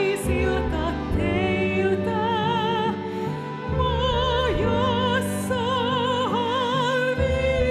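Female classical soprano singing a slow song in operatic style, with long held notes and wide vibrato over sustained low instrumental accompaniment.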